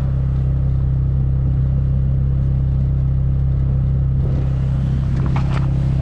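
Steady engine drone of an off-road vehicle towing a sled across bare lake ice, with a few sharp knocks about five seconds in.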